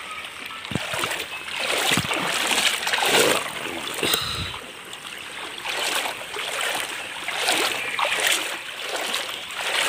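Footsteps wading through shallow floodwater: repeated splashing and swishing of water that swells and fades with each step, roughly once a second.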